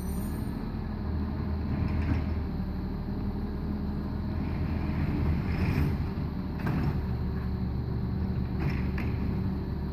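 Garbage truck's engine running steadily, with several clanks and rattles as its automated arm lifts and empties a curbside recycling bin.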